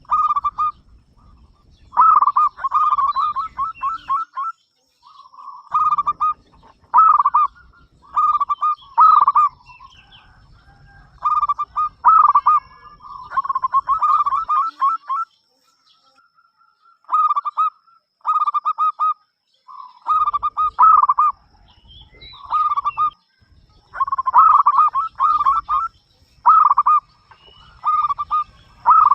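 Zebra dove (perkutut) cooing: short phrases of rapid, rolling coos repeated every second or two, with a short break about halfway through.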